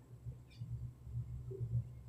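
Faint, uneven soft scraping of a steel trowel spreading skim coat over rough concrete, over a low pulsing rumble, with a small click about half a second in.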